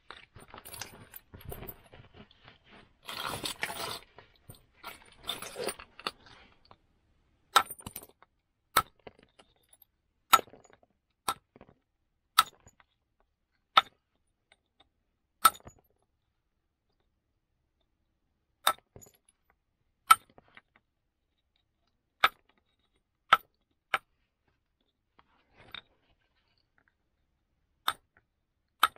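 Flint knapping by indirect percussion: a wooden billet strikes a moose-antler punch set on a flint axe blank, giving sharp clinking strikes every one to two seconds. The strikes begin after several seconds of scraping and rustling as the stone and tools are handled.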